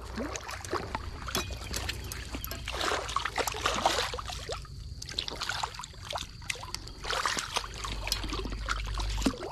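Large blue catfish flopping and thrashing in wet mud and shallow water, making irregular wet slaps and splashes.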